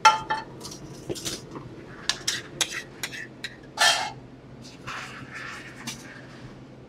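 Metal spoon clinking and scraping against a stainless sauté pan and a china plate as red wine sauce is scooped out. A series of sharp clinks, the loudest right at the start with a brief metallic ring and another about four seconds in, then softer scraping.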